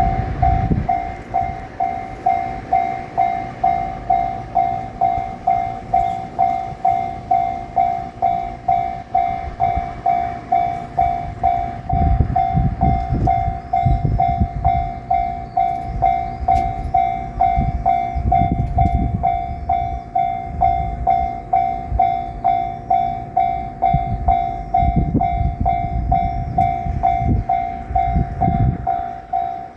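Japanese level-crossing warning bell ringing in an even, steady ding just under twice a second. From about twelve seconds in, the low rumble of a JR Shikoku 7000 series electric train comes through in several waves of wheels running over the rails.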